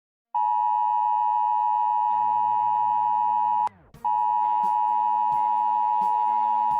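A steady electronic beep tone near 1 kHz. About three and a half seconds in it cuts off with a click and a falling glide, then comes back half a second later with scattered clicks and crackles over it.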